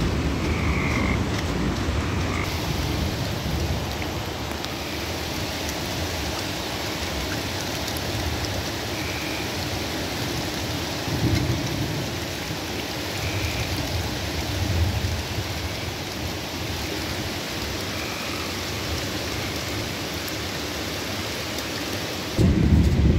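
Steady rush of water from a flooded creek, with frogs giving short high calls every few seconds.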